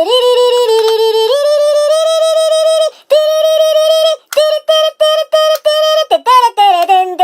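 A high-pitched voice singing a wordless tune: a few held notes stepping up and down, then a run of short, quick notes and some sliding notes near the end.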